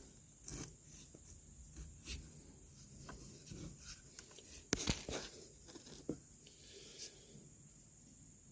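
Scattered small clicks and rustles of hands handling automotive wiring and plastic connectors, the sharpest click a little under five seconds in.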